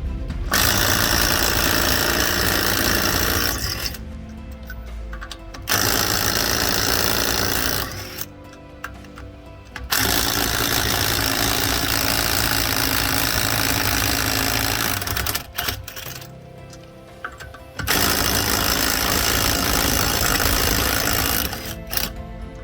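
Impact wrench hammering in four bursts of a few seconds each, spinning off the lug nuts of a trailer wheel.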